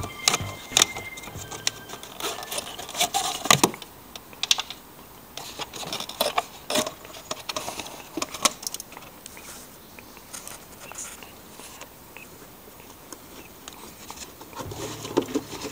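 Plastic and rubber parts of a BMW E46 air intake being handled: the intake boot pulled free and the air filter housing lid lifted, giving a run of sharp clicks, knocks and rattles in the first few seconds, then sparser taps and scrapes.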